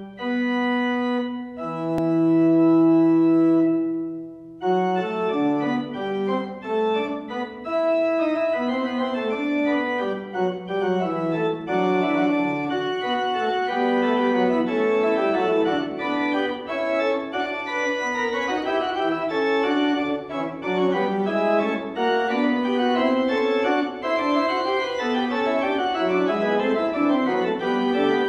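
1940 Möller pipe organ playing a fugue: sustained chords for about the first four seconds, then, after a brief break, several quick-moving interwoven lines.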